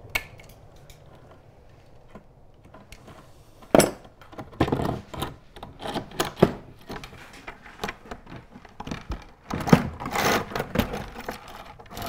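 Steel sash-weight chain clinking and rattling as it is handled in the window frame, with several sharper knocks against the wood. It starts about four seconds in, after a quiet stretch.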